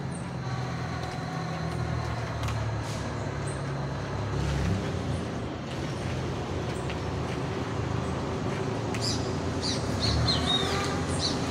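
Steady low hum of a running vehicle engine or nearby traffic, with birds chirping in the last couple of seconds.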